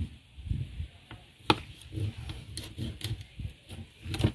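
A large knife chopping through king fish (seer fish) to cut steaks, knocking on the cutting surface in a string of irregular sharp knocks, the loudest about a second and a half in and again near the end.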